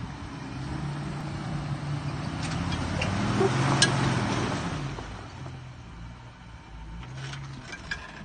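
Jeep Wrangler TJ engine working under load as it crawls up a steep rock slab. It grows louder to a peak about halfway through, then eases off. There is one sharp click near the middle.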